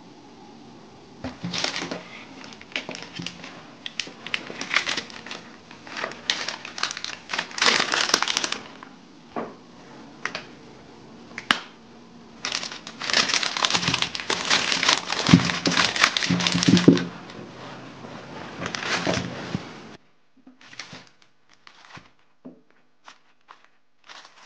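Plastic zip-top bag crinkling and rustling in irregular bursts as it is handled, going quiet near the end apart from a few light taps.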